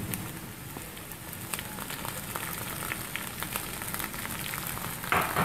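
Diced onions and freshly added chopped green peppers sizzling and crackling in hot oil in a frying pan, with a brief louder burst near the end.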